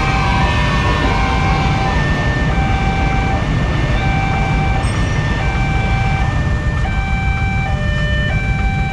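Railway level-crossing warning alarm sounding, a repeating pattern of steady electronic tones stepping between a few pitches, each held about half a second. Underneath is a constant low rumble from the queued motorcycles and the passing train.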